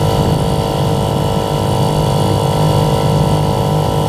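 1938 Evinrude Lightwin 4.7 hp outboard, a two-cylinder two-stroke, running at a steady speed.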